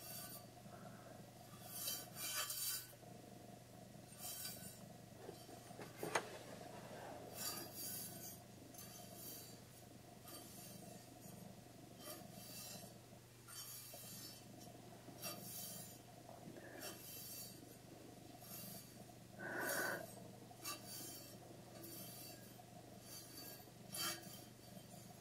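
Short, irregular brushing or rubbing swishes, about one or two a second, over a faint steady hum.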